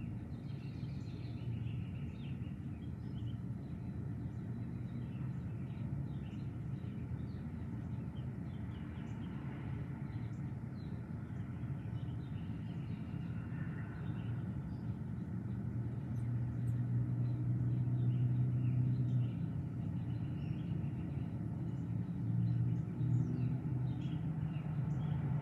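Distant thunder rumbling low and continuously, swelling louder about two-thirds of the way through and again near the end. Faint bird chirps sound over it.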